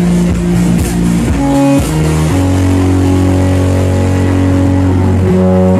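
Loud electronic dance music from a DJ set played over a club sound system. It is a breakdown of long held bass and chord notes with the beat largely dropped out. The notes change about a second and a half in, again just after two seconds, and near the end.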